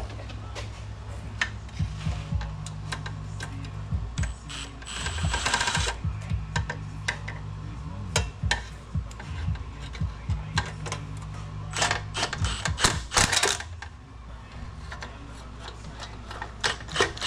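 Hand ratchet clicking in short runs, with scattered metallic clicks, as oil pan bolts are run in. Underneath is a steady low hum, and there is a brief hiss about five seconds in.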